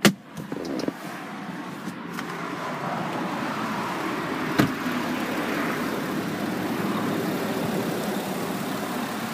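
A car door unlatches with a sharp click, and about four and a half seconds later a second click marks it being shut. In between and after, a steady running noise holds, which fits the Volkswagen Touareg's 3.0 V6 TDI diesel idling, heard from beside the car.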